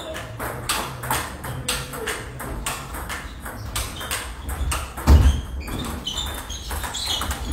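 Table tennis balls clicking in quick rallies, struck by bats and bouncing on tables, with clicks overlapping from several tables. There is one heavy thump about five seconds in.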